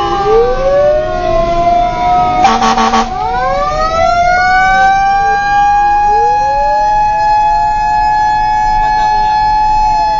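Fire truck siren wailing, heard from inside the cab, its pitch sweeping up and levelling off in slow repeated cycles. About two and a half seconds in, a short horn blast of under a second cuts across it.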